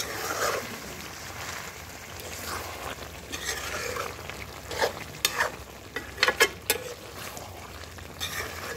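Metal spatula stirring and scraping chicken and potato curry in a metal pan, the thick gravy frying and sizzling in oil that has separated out, the sign the masala is cooked through. Several sharp clinks of the spatula against the pan come a little past the middle.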